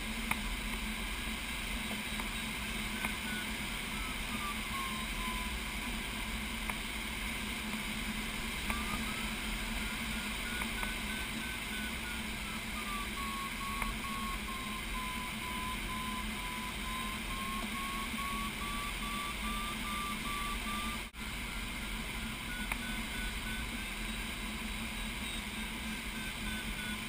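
Glider's audio variometer beeping, its pitch slowly rising and falling with the changing climb rate, over a steady rush of air in the cockpit. The tone drops out for a few seconds about a quarter of the way in, and all sound cuts out for an instant about three quarters of the way through.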